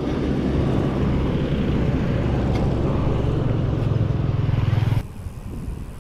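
Motor traffic passing close by on the road, a heavy truck's engine among it, mixed with wind rumble on the microphone. The noise drops off abruptly about five seconds in, leaving a quieter rumble.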